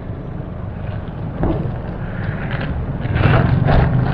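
Scraping and rustling as a cardboard parcel is handled and pulled from a foil-lined delivery box, loudest about three seconds in, over a steady low rumble.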